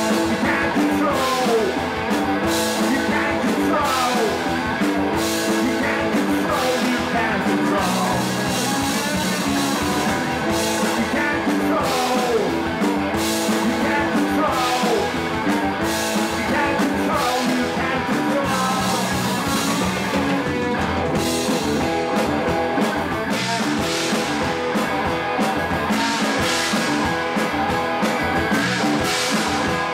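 Punk rock band playing live: electric guitar and drum kit in a full-band song.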